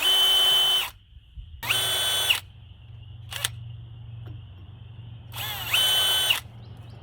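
A power drill run in three short bursts, each spinning up and winding down, as it works on the hinge screws. A single sharp click comes between the second and third bursts.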